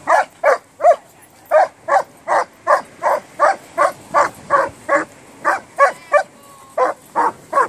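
A young dog barking over and over in rough play, short sharp barks at about two or three a second, with a brief break twice.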